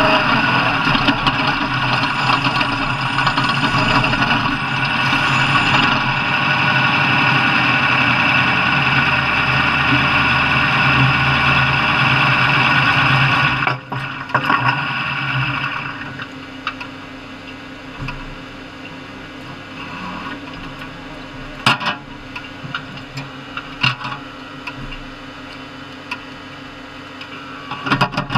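An engine running loudly and steadily. About halfway through it cuts off sharply to a much quieter background with a few sharp knocks.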